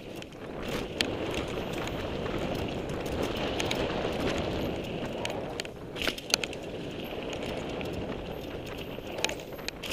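Mountain bike riding down a dirt jump line: a steady rush of tyres rolling on packed dirt, broken by sharp rattles and clatters of the bike about a second in, around six seconds in and near the end as it lands off the jumps.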